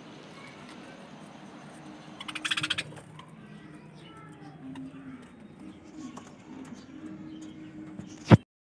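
Caged budgerigars chirping and chattering softly, with a quick, rapid burst of sound about two seconds in. A single sharp click comes just before the end.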